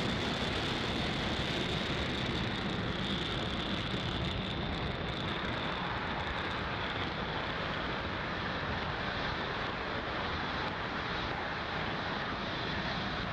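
Falcon 9 rocket climbing away under its first stage's nine Merlin engines: a steady, even noise with no breaks.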